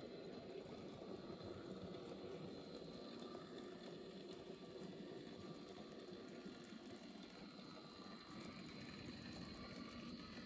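Faint, steady whirring of an N-scale model train running along its track.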